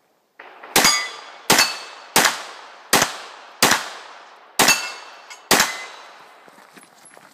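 Seven pistol shots from an IPSC Open division race pistol, fired about one every three quarters of a second and slowing slightly near the end. Each shot has a decaying echo, and some are followed by a brief metallic ring.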